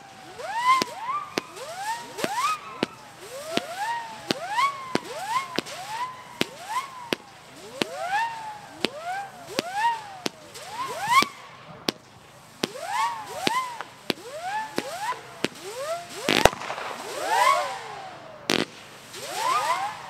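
Jorge 'Wolf' howling firework cake firing its howling spinners one after another, about two a second. Each spinner gives a whistle that swoops up and then falls in pitch like a howl, the whistles overlap, and a sharp pop marks each shot. Near the end two louder cracks come as the closing salvos send up several howls at once.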